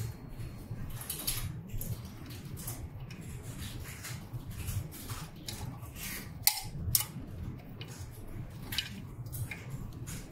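Plastic cables and fittings being handled on a UV printer carriage: irregular rustling and small clicks, with two sharper clicks about six and a half and seven seconds in. A steady low hum runs underneath.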